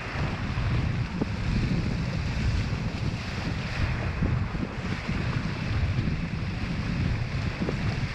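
Strong wind buffeting the microphone of a windsurfer's camera, a steady low rumble over the hiss of choppy water running under the board as it sails slowly.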